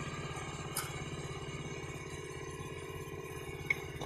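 Mitsubishi Colt T120SS engine idling steadily after its oil and filter change, with a faint click just under a second in and another near the end.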